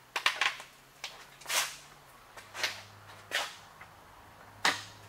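A handful of separate sharp clicks and taps, about six at uneven intervals, from the milling setup, over a faint steady machine hum that drops slightly in pitch about two seconds in.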